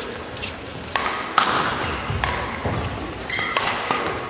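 Badminton rally: rackets striking the shuttlecock with several sharp cracks, the loudest about one and a half seconds in, between short squeaks of court shoes on the floor, ringing in a large sports hall.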